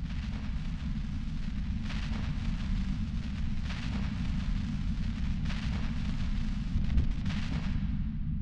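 Low steady rumble under a hissing noise that swells four times, about every two seconds.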